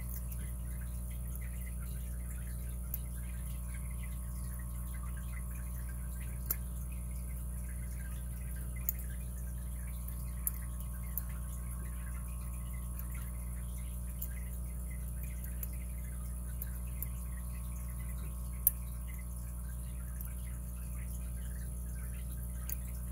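Steady electrical hum, with scattered faint clicks and light scratching from a lock pick and tension wrench working the pins in the keyway of a brass Chubb 5-pin padlock. The click about two-thirds of the way through is the sharpest.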